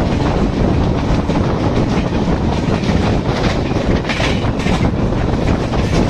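Moving passenger train heard from inside a coach: steady rumble of wheels on rails, with a run of clickety-clack knocks over rail joints about four seconds in.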